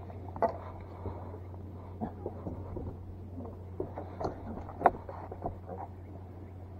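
Light taps and rustling as a freshly caught nirogi (ponyfish) is picked up off a wooden deck in a cloth towel and unhooked, with one sharper click about five seconds in. A low steady hum runs underneath.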